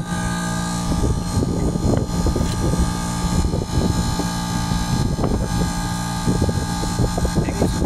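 Split air conditioner outdoor unit running with a steady mechanical hum.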